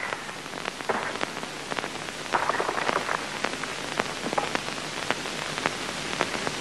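Steady hiss scattered with irregular clicks and pops, the surface noise of an old optical film soundtrack.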